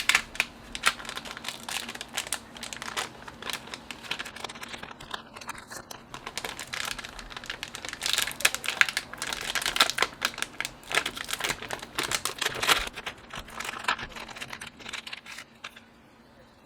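Plastic packaging crinkling as a keyboard kit is unpacked by hand, with many quick clicks and taps of parts being handled; it dies down near the end.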